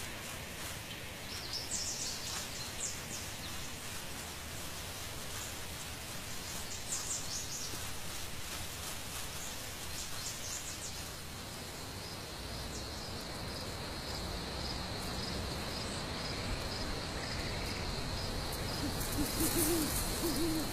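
Outdoor nature ambience: a few bursts of high bird chirping in the first half. Then, from about halfway, crickets chirp in a steady pulsing trill. An owl hoots a few times near the end.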